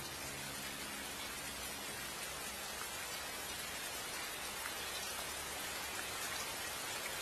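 Steady rain falling, an even hiss sprinkled with the fine patter of drops, heard as recorded rain ambience at the tail of a song.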